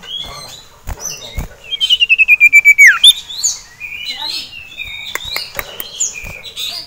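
Common iora calling excitedly: a mix of short whistled chirps and slides, with a loud, fast trill of about a dozen falling notes ending in a downward sweep about two seconds in. A few sharp knocks are heard among the calls.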